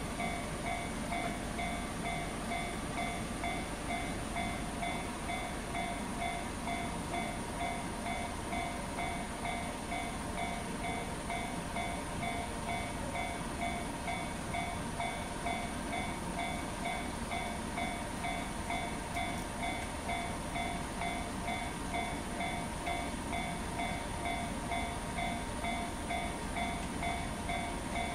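Japanese level-crossing electronic warning bell ringing in a fast, even repeat, over the steady low rumble of a slow freight train rolling through the crossing.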